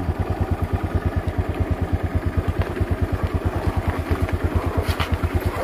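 Honda motorcycle engine running steadily at low revs, an even putter of about ten beats a second, with a few light knocks as the bike rolls down a rutted dirt track.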